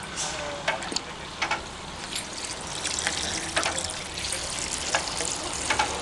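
Water being pumped by a Tokai Kikai NEW HOPE MT-50 mortar pump on a water test, coming out in a steady rush with irregular sharp splashes and spatters.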